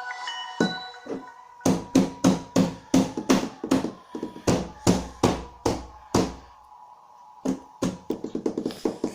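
A preloaded ringtone playing on a Samsung Galaxy Pocket phone: a short melody of sharp plucked notes over a steady beat. It breaks off briefly about six seconds in, then starts again.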